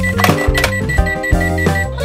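Toy vending machine giving a rapid string of high electronic beeps that stops near the end, over loud background music.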